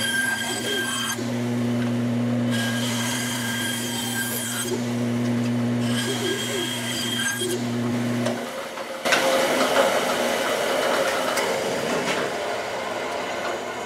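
Benchtop bandsaw running with a steady hum while its blade cuts a small wooden lure body, the blade biting into the wood in three separate passes. The motor hum stops about eight seconds in, and a louder, even rushing noise follows.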